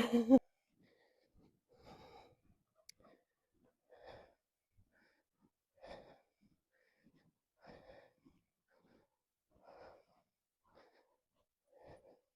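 A woman breathing faintly and evenly into a clip-on microphone, one soft breath about every two seconds.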